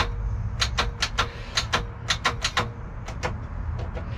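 Starter solenoid on a seized Mercruiser 4.3 V6 clicking rapidly and irregularly, several clicks a second with short pauses, some joined by a faint steady tone. The starter is trying to engage but the seized engine does not turn, and the contact sounds intermittent.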